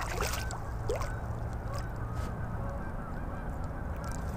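A hooked largemouth bass splashing and thrashing at the water's surface beside the boat, with splashes near the start and again near the end, over a steady low hum and faint short calls in the background.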